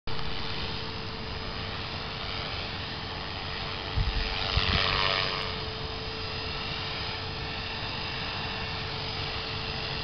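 Electric 450-size RC helicopter (E-Razor 450) flying, a steady whine from its motor and rotor over a background rush. About four seconds in the rush swells, with a couple of low thumps.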